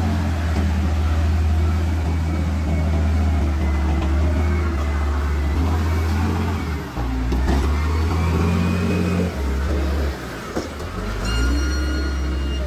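Wheel loader's diesel engine running and working under load as the bucket digs into a pile of soil and lifts, its note dropping and rising a few times. A steady high tone sounds for about a second and a half near the end.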